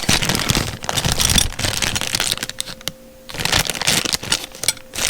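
Cardboard and plastic packaging being handled and unwrapped: irregular rustling and crinkling with a few sharp clicks, and a short pause about three seconds in.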